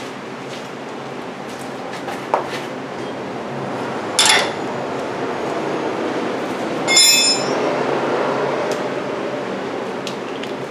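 Steel wrench clinking against the steering-rack mounting bolt and crossmember: a few short clicks, a clank about four seconds in, and a ringing metallic clink about seven seconds in, over a steady background hum.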